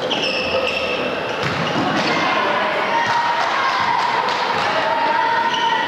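Basketball game in a gym: spectators shouting and cheering, louder from the moment a free throw is released, over the thuds of the ball bouncing on the wooden court.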